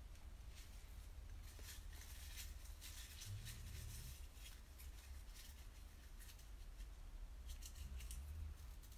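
Faint rustling and soft scattered clicks over a low steady hum, close to room tone.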